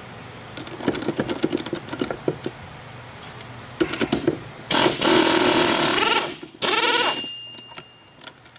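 Air wrench driving the centre bolt of a three-arm puller to draw the clutch pulley off a Sanden SD7 A/C compressor, in two bursts: one of about a second and a half, then a shorter one that rises in pitch. Before them, a run of quick metallic clicks and knocks of the tool on the puller.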